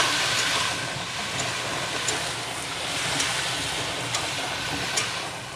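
Water poured into a hot kadai of frying potatoes and soya chunks, hissing and sizzling steadily as it hits the oil, with a few light scrapes and taps of the metal spatula against the pan.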